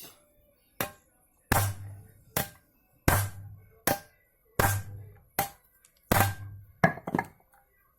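Hammer blows driving a car's hub bearing into the steering knuckle: about ten sharp metallic strikes at a steady pace, every other one heavier with a deep thud.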